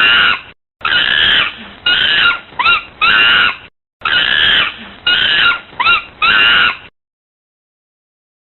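An animal calling loudly in short, high-pitched cries, several with quick upward swoops in pitch. The same few-second recording plays twice over, then stops about a second and a half before the end.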